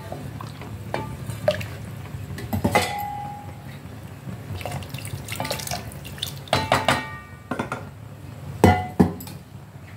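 A ladle stirring thin gravy in a stainless steel pot and knocking against its side, giving sharp metallic clinks that ring briefly; the two loudest come near the end. A steady low hum runs underneath.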